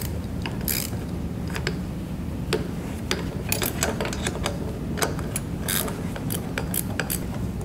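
Hand ratchet with a 9/16 socket clicking in short, irregular runs as it tightens the mounting bolts of a hydraulic gear pump.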